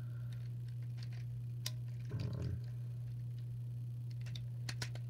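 Light plastic clicks and taps of LEGO pieces being handled and pressed together while a Beyblade is reassembled, a few sharp clicks near the middle and toward the end, over a steady low hum.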